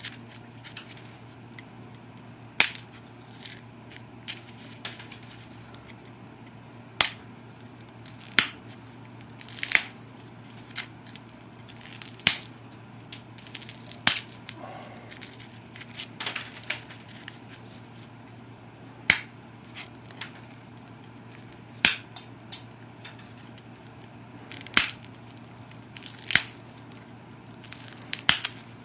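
Pressure flaking an obsidian biface with a copper-tipped pressure flaker on a heavy abraded platform: a series of sharp clicks and snaps as flakes pop off the edge, irregularly every second or so, sometimes two or three close together.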